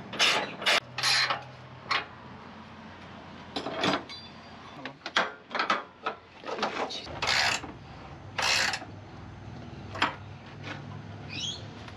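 A spanner tightening a camper tie-down clamp's 17 mm bolt under the tray, heard as irregular short bursts of ratcheting and scraping metal. A bird chirps briefly near the end.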